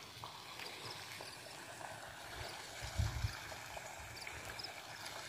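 Faint steady outdoor rushing hiss, with a few soft footsteps on a gravel embankment path about three seconds in and faint high chirps near the end.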